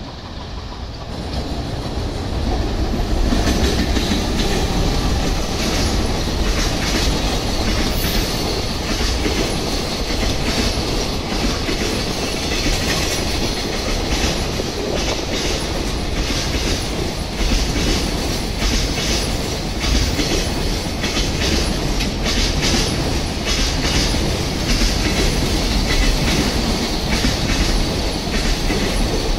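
Freight train passing close by: a JR Freight EF210 electric locomotive comes up and goes past, louder over the first few seconds, then a long line of container flatcars runs by. Their wheels click rapidly and unevenly over the rail joints.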